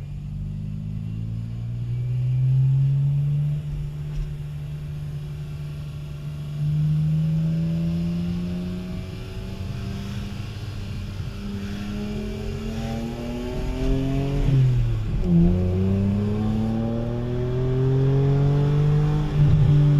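BMW Z4M's 3.2-litre inline-six with its muffler deleted, heard from inside the cabin. It runs low and steady at a crawl, then pulls harder with the note climbing. The pitch drops at an upshift about three-quarters of the way through, climbs again, and drops at another shift near the end.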